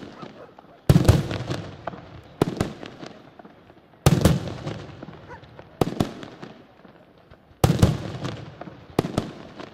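Aerial firework shells bursting one after another, six loud bangs about every one and a half seconds. Each bang fades away over a second or so, with scattered smaller pops in its tail.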